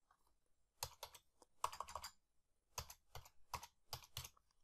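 Faint typing on a computer keyboard: about ten keystrokes at an uneven pace as a ten-digit number is entered.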